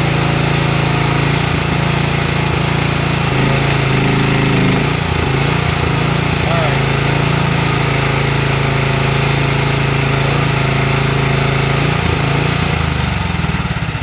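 Mini excavator engine running steadily under hydraulic load while the arm lifts a heavy black cherry log, about as much as the machine can carry without tipping. Its pitch dips briefly a few times as the hydraulics strain, and the sound falls away near the end.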